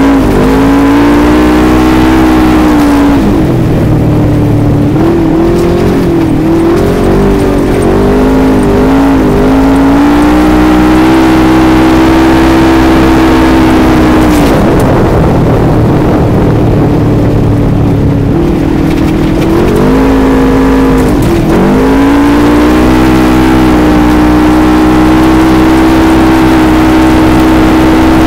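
2015 Polaris RZR XP1000's parallel-twin engine running loud and steady under way, heard from the cockpit. Its note dips and rises several times in the first ten seconds and again about twenty seconds in, then holds steady to the end.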